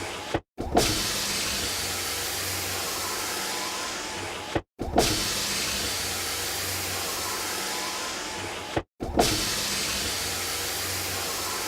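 Car power window motor running with a steady whirring hiss. About every four seconds it stops with a clunk, falls silent for a moment and starts again with a click, three times.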